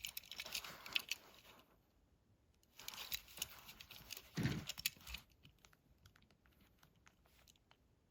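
Hand handling of die-cast toy cars and their plastic packaging: crinkling and light clicks in two short bursts, then scattered small clicks.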